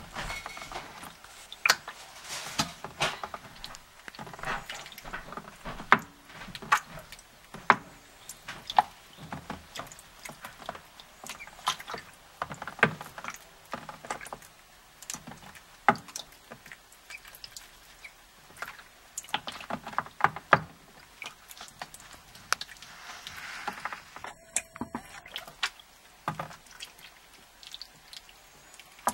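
Call ducklings splashing and dabbling in shallow water: an irregular run of small splashes and drips, a few of them sharper and louder.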